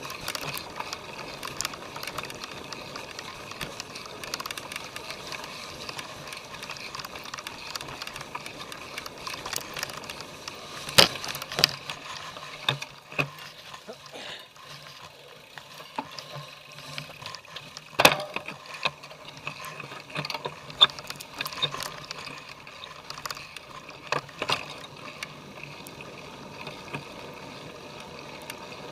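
Cyclocross bike ridden over rough ground: the chain and drivetrain rattle steadily, with several sharp clanks and knocks from bumps. The loudest knocks come about eleven and eighteen seconds in.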